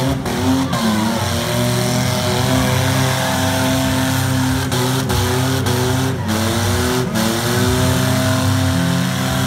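Several demolition-derby minivan and pickup truck engines running hard together, loud and continuous, their pitch rising and falling as they rev.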